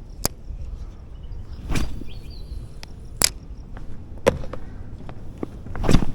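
Several sharp clicks and knocks a second or so apart, the heaviest one near the end, over a low steady rumble.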